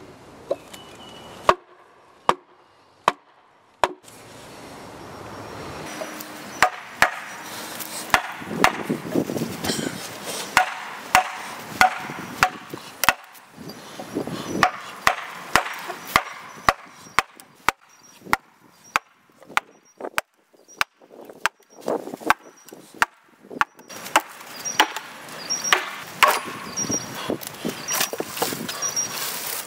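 Wooden mallet striking the back of a froe's steel blade, driving it down into a log section to split it lengthwise: a long run of sharp knocks, a few spaced strikes at first, then a steady one to two a second from about six seconds in.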